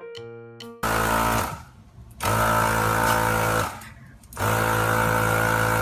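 A few piano notes, then a small motor starts running loudly about a second in, a steady mechanical hum that cuts out twice for about a second before starting up again.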